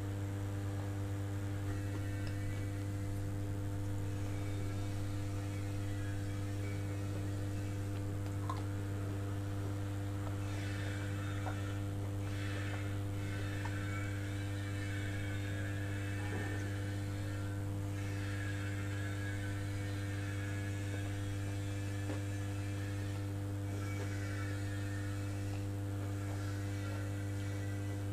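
A steady low electrical hum, the loudest sound, over faint chewing of a soft steamed bao bun that comes in stretches from about ten seconds in.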